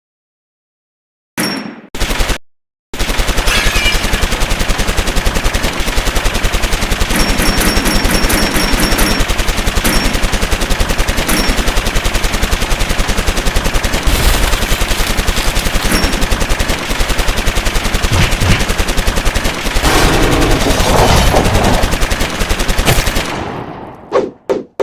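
Stock machine-gun fire sound effect: after a second or so of dead silence and two short bursts, a long unbroken stream of rapid shots that dies away near the end.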